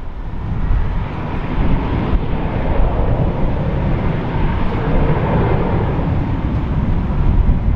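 Jet airliner's engines passing close by: a loud, steady low rumble that swells just as it begins and holds.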